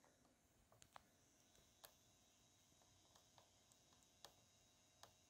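Near silence with a few faint, scattered clicks from the buttons and controls of a JVC GR-SXM915U camcorder being pressed.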